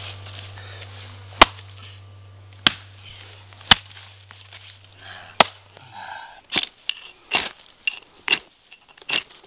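Hatchet chopping into a damp, rotting log: sharp strikes, spaced out at first and coming quicker near the end.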